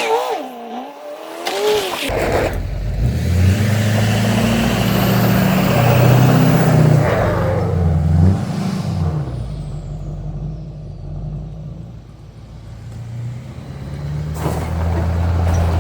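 A car's engine running as the car drives slowly off the concrete onto the gravel. Its pitch steps up and down, and it fades about two-thirds of the way through before coming up loud again near the end.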